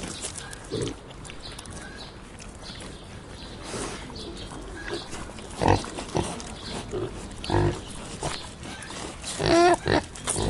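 Pigs grunting while munching their food, with short chewing and crunching clicks between a few separate grunts. Near the end comes a longer, higher-pitched grunt.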